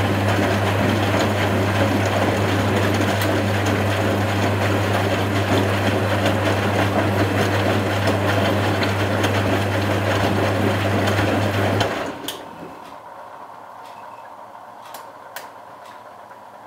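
Constructa Contura washing machine's drain pump humming steadily with rushing water, then cutting off suddenly about twelve seconds in. A few faint clicks follow.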